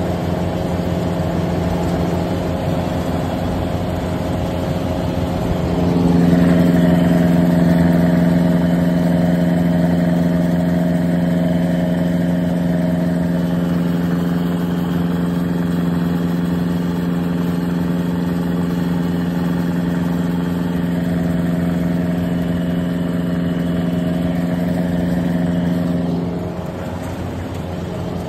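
Yanmar 820 rice combine harvester running steadily while cutting, its engine and machinery making a constant hum. About six seconds in the hum grows louder with a stronger steady tone, and it eases back near the end.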